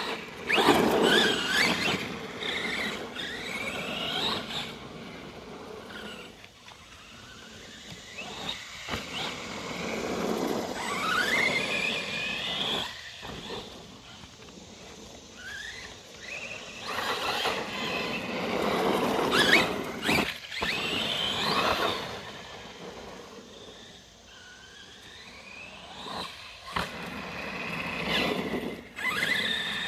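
Arrma Granite 4x4 BLX radio-controlled monster truck running on a 3S battery: its brushless motor whines in steep rising glides as it accelerates, in repeated bursts of throttle with easing-off between.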